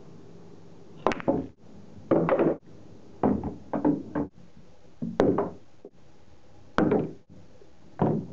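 A cue tip strikes the cue ball with a sharp click about a second in, followed by clusters of knocks as pool balls hit each other and drop into the table's pockets one after another.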